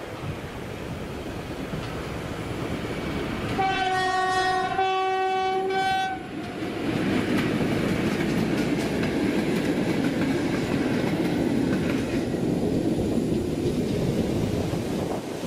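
SM42 diesel locomotive sounds its horn, one blast of about two seconds, a few seconds in as it approaches. The locomotive and its passenger coaches then run past, with a steady rumble of wheels on the rails.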